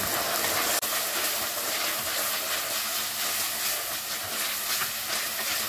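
Mutton mince with onion and ginger-garlic paste sizzling steadily as it fries in oil in a clay pot. A wooden spoon stirs and scrapes it.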